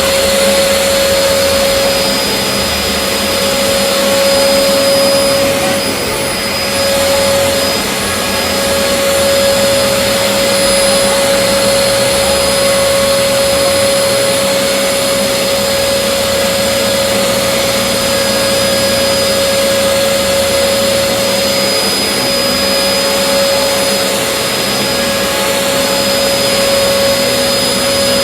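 Dyson DC04 vacuum cleaner running steadily: a constant rush of air with a steady high motor whine over it.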